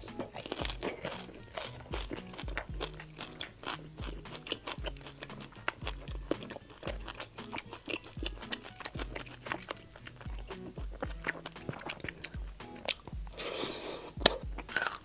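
Crunching and chewing of deep-fried crispy-skin pork belly, its puffed skin crackling with every bite, with a louder crisp bite near the end. Background music plays underneath.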